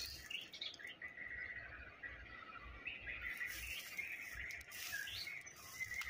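White-rumped shama singing from the trees: a steady run of short, varied whistled and chirped notes.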